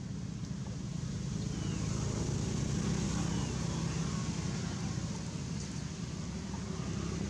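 Steady low outdoor background rumble, with a couple of faint short high chirps about a second and a half and three seconds in.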